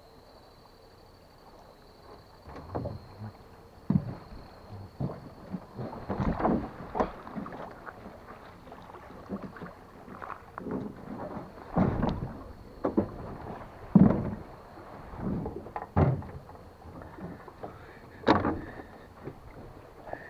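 Irregular knocks and bumps on an aluminium boat hull as someone moves about in the boat and handles gear, some of them sharp, over a faint steady high buzz.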